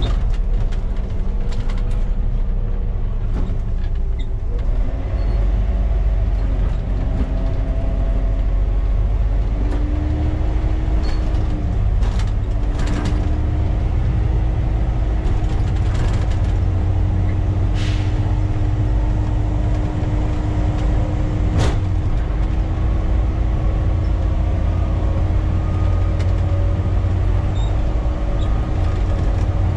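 Volvo B7TL double-decker bus's six-cylinder diesel engine and drivetrain running loud under way, heard from the driver's cab. A whine climbs in pitch several times over the first dozen seconds, then holds steady, with a few sharp clicks or rattles along the way.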